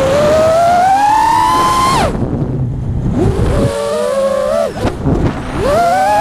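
FPV quadcopter's brushless motors whining with the throttle: the pitch climbs steadily, drops off sharply about two seconds in, sits lower and quieter for a while, then climbs again near the end.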